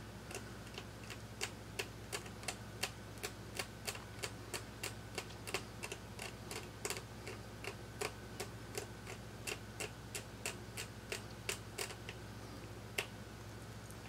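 Small sharp ticks, about three a second, from a blade scraping delaminated solder mask off an iPhone 6 Plus logic board to expose the copper traces; the ticks stop shortly before the end. A faint low hum runs underneath.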